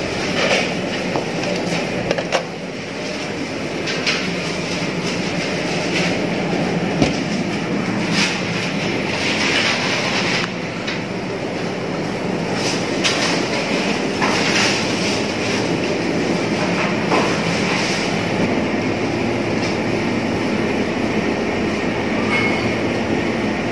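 Steady mechanical hum with a rushing noise, and a few faint light clicks.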